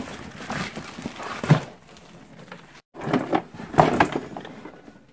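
Cardboard drone box being handled and slid out of its packaging: irregular scraping and rustling with a few sharp knocks, broken by a brief silence near the middle.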